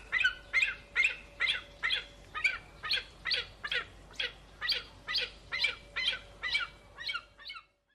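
A bird call standing in for a vulture: short, high cries repeated about two to three times a second, each falling in pitch, with a faint steady hum underneath.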